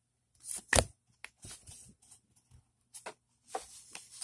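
Pokémon trading cards being handled and slid over one another as a freshly opened pack is shuffled through, in short rustles and flicks, with a sharp snap a little under a second in.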